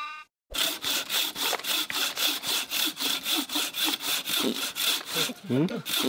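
Hand bow saw cutting through a wooden log in quick, even back-and-forth strokes, about four a second, starting about half a second in.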